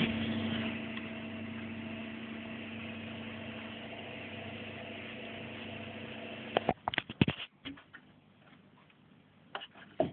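A steady machine hum from a running motor or fan, a little louder in the first second, that stops abruptly about two-thirds of the way through. A quick cluster of clicks and knocks follows, then a few scattered ticks.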